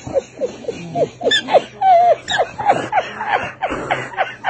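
A man laughing hard in a quick run of short, high-pitched 'ha' sounds, about three a second.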